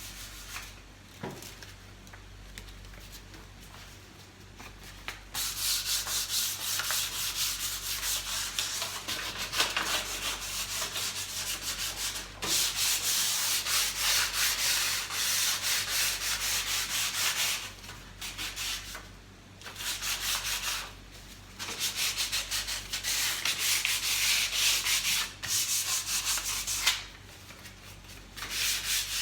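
Sandpaper rubbed by hand over a varnished surface in quick back-and-forth strokes, stripping off the varnish. It is faint for about the first five seconds, then loud, with a few short pauses.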